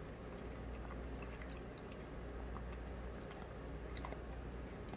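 A 15½-year-old greyhound eating soft, mashed food from a bowl: irregular small wet clicks of chewing, over a low steady hum.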